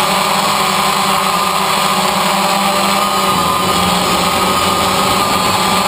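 DJI Phantom quadcopter in flight, its four electric motors and propellers giving a steady, loud buzzing whine with a slight waver in pitch.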